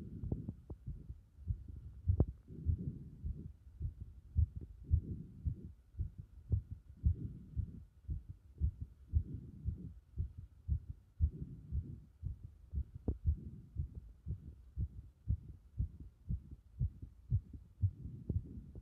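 Human heartbeat recorded through the chest wall: dull low thumps in a steady rhythm, with a low rumble between beats, while the chest is repeatedly pressed in. A faint steady high whine runs underneath.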